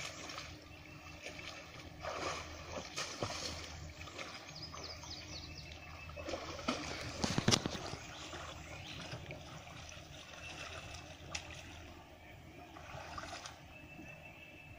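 Water splashing and sloshing in irregular bursts as a scuba diver in full gear wades in shallow spring water, with a louder splash about halfway through.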